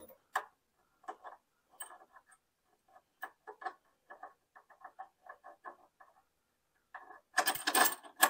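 Ratchet wrench clicking in short runs of light ticks, then a louder, denser burst of clicking about seven seconds in, as a control-arm bolt is run in.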